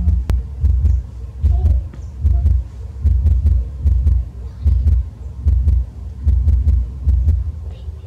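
Soft, dull low thumps in a steady rhythm, about one every 0.8 s, from a hand patting a towel-wrapped baby macaque to lull it to sleep. A single sharp click comes about a third of a second in.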